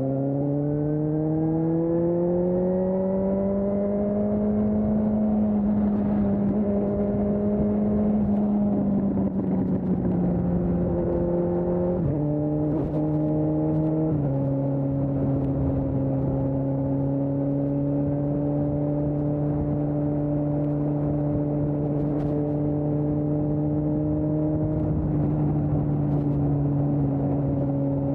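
2020 Suzuki GSX-S750's inline-four engine through an aftermarket Storm exhaust, pulling up through the revs over the first few seconds and then holding. About 12 seconds in it shifts up, and again about 14 seconds in, with the pitch stepping down each time. It then cruises at steady revs over wind and road noise.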